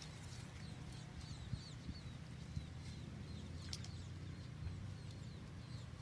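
Faint outdoor ambience with a run of small, quick, high bird chirps and a few light clicks.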